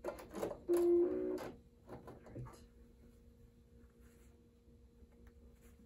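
A few small clicks, then about a second in a short electronic beep followed at once by a brief chord of several tones. A faint steady hum runs underneath.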